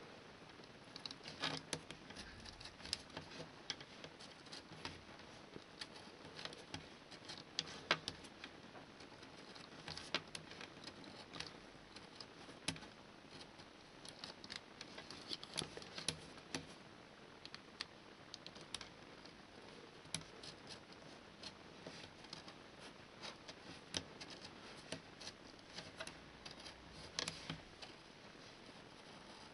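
A cutter's blade cutting small holes in milk-carton card: faint, irregular clicks and scratches, a few sharper snicks among them.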